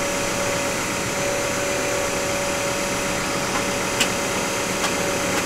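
A steady, even mechanical hum with a constant tone, like an engine running, and a couple of faint clicks about four and five seconds in.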